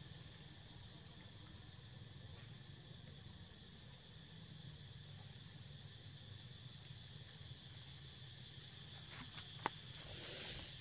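Steady high-pitched chorus of insects. A sharp click comes a little before the end, followed by a brief loud hiss.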